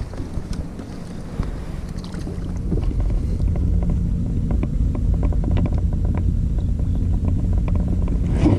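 Wind buffeting the microphone: a low, uneven rumble that grows louder about three seconds in, with faint light clicks over it.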